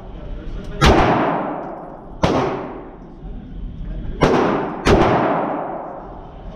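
Four AR-15 rifle shots in an indoor range, each followed by a long echo that fades off the walls. The first comes about a second in and the next about a second and a half later. The last two come close together, half a second apart, about four seconds in.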